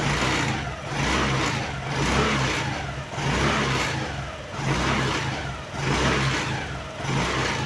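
Honda Activa 110cc scooter's single-cylinder engine revved in repeated throttle blips, rising and falling about once a second. Under the seat, the scooter's built-in metal stay rod vibrates with the revs and adds a rattling noise, the cause of the scooter's noise problem.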